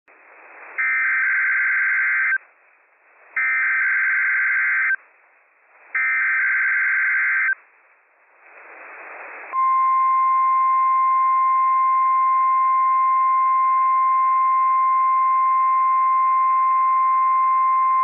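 NOAA Weather Radio Required Weekly Test signalling: three short bursts of SAME digital header data, each about a second and a half, with receiver hiss between them. About halfway through, the steady 1050 Hz warning alarm tone begins and holds.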